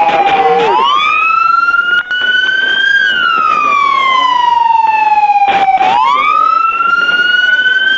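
Police car siren on a slow wail, its pitch rising and falling in long sweeps of a few seconds each.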